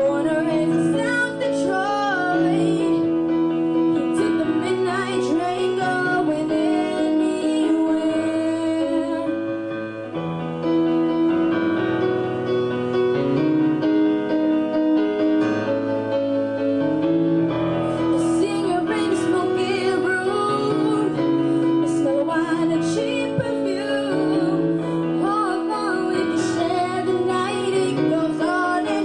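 A girl singing a ballad live into a handheld microphone over a backing track with piano. Her voice drops out for an instrumental stretch in the middle, and she comes back in during the second half.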